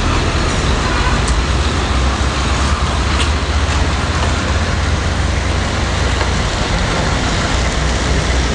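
City street traffic: a steady low rumble of trucks and cars passing through an intersection.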